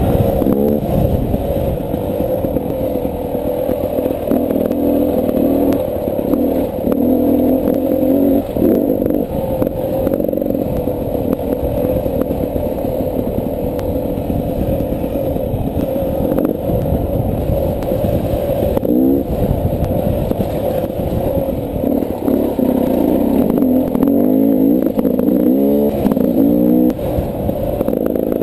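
Beta 300 RR two-stroke dirt bike engine on the move, its pitch rising and falling as the throttle is opened and closed, with several quick revs near the end. Clatter and scraping from the bike and trail run through it.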